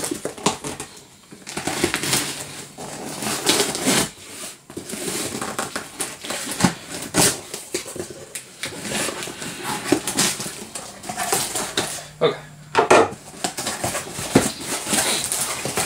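Knife blade slicing through packing tape on a cardboard box, then the cardboard flaps being pulled open and folded back: irregular scraping, tearing and rustling of tape and cardboard.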